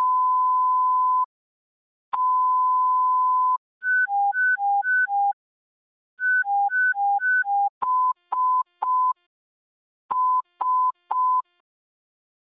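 Motorola dispatch console alert tones. A long steady beep sounds twice, then the Alert 2 tone, a rapid high-low alternating warble, plays twice, and then come two sets of three short beeps.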